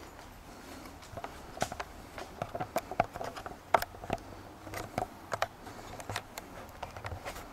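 A run of irregular light clicks and taps, starting about a second in and scattered unevenly, over a low steady background hum.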